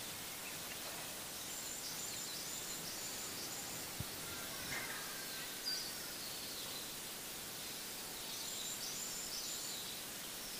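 Small birds chirping in short runs of high repeated notes over a steady outdoor hiss. There is a brief tap about four seconds in.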